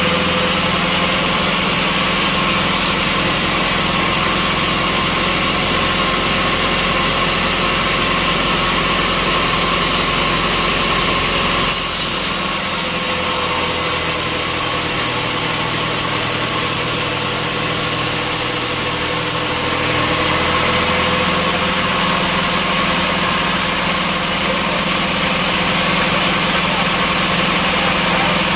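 Sawmill machinery running steadily with a constant mechanical hum and whine. Its tone changes about twelve seconds in and changes back about eight seconds later.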